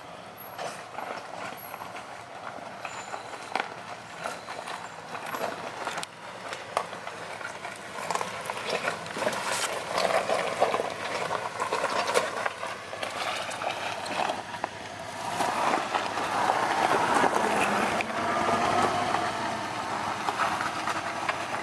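ATV engine running as the quad rides along a rough trail, with frequent knocks and rattles from the ground and the machine. It grows louder from about a third of the way in.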